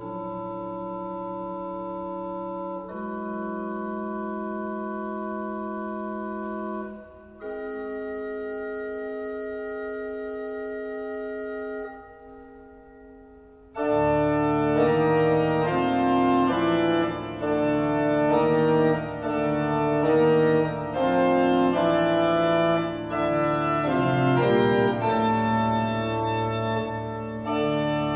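Organ playing: sustained chords held several seconds each, changing twice, then fading down about twelve seconds in. From about fourteen seconds a louder, fuller passage starts, with moving notes over a bass line.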